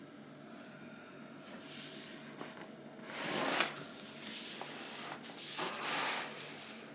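A cardboard box is handled: scraping and rustling in bursts, with a sharp knock about three and a half seconds in.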